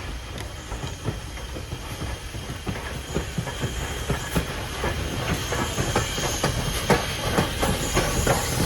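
A steam excursion train hauled by a 2-6-0 mogul steam locomotive running on the rails: a low rumble with many irregular clanks and wheel clicks and a steam hiss, growing steadily louder.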